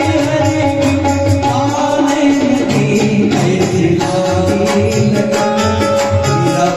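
Devotional bhajan being performed: singing over instrumental accompaniment, with a held drone tone and a steady percussion beat.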